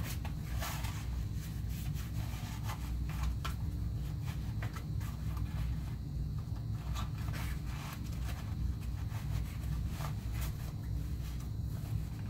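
Handling noise of a Kydex-and-horsehide hybrid holster being fitted onto a belt at the small of the back: scattered rubbing, rustling of clothing and a few light clicks of the plastic and clips, over a steady low hum.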